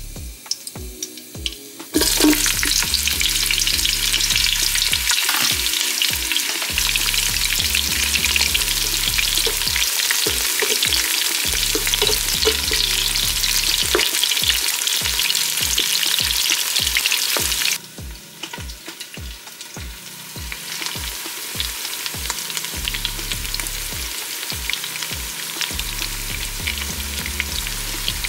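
Food frying in hot oil in a pan, a loud sizzle that starts abruptly about two seconds in and drops to a quieter sizzle after about eighteen seconds.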